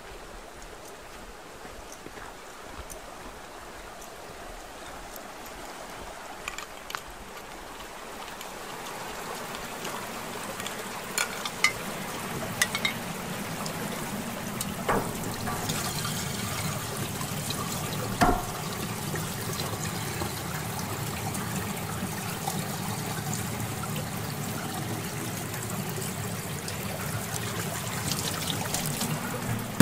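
Water running from an outdoor tap into a stainless-steel sink, then pouring into an aluminium canteen held under the stream. The steady splashing grows louder about a quarter of the way in, with a few sharp knocks along the way.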